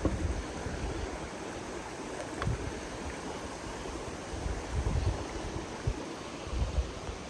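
Tat Ton Waterfall's water rushing steadily, with wind buffeting the microphone in low thumps a few times.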